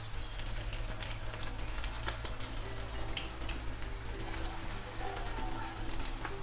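Hot cooking oil sizzling with a dense crackle of small pops as leftover-rice cutlets are laid into the pan to shallow-fry.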